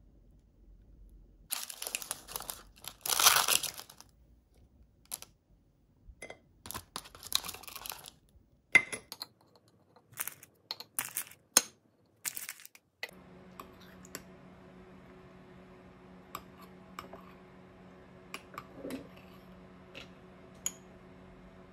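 A plastic food pouch crinkling and tearing open, followed by scattered clicks and taps as a plastic tray is handled and dumplings are set on a plate. From about 13 s in, a steady low hum with light clicks of a metal spoon in a glass jar.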